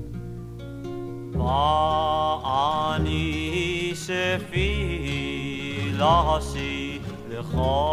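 Male vocal group singing a Hebrew psalm setting over acoustic guitar and bass. Sustained instrument notes fade at first, and the voices come in about a second and a half in.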